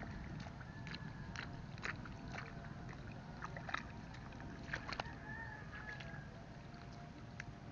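Wet squelches and small splashes of bare feet and hands in the soft mud of a flooded rice paddy as rice seedlings are pushed in by hand, coming as scattered short clicks and slaps over a steady low rumble.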